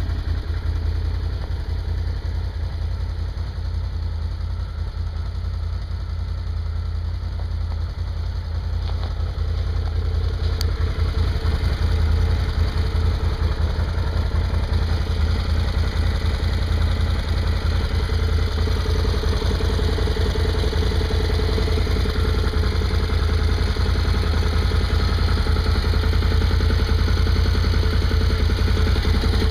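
Can-Am Renegade 1000 ATV's Rotax 1000 V-twin EFI engine idling steadily on its stock exhaust, a little louder from about twelve seconds in.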